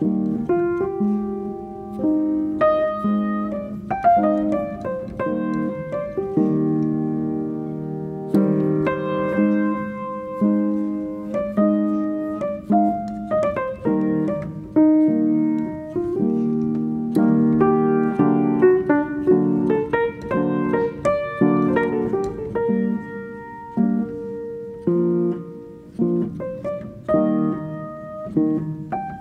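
Background piano music: a steady flow of notes, each struck and left to ring out.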